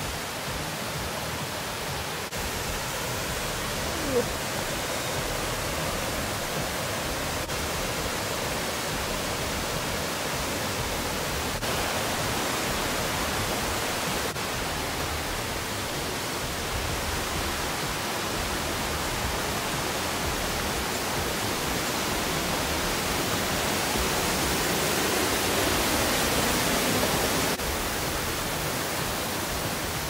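Steady rush of mountain water, a stream or small falls beside the trail, growing a little louder near the end. A single short knock about four seconds in.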